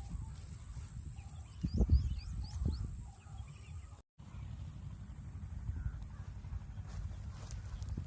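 A bird calling a quick run of short chirps about two seconds in, over a steady low rumble, with a thump near the same moment.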